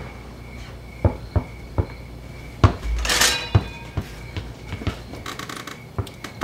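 Scattered knocks and a short clatter like dishes and cupboards being handled, with a faint chirp pulsing in the background.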